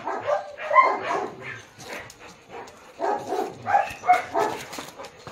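A dog barking, yipping and whining in short calls, in two bouts: around the first second and again about three to four seconds in.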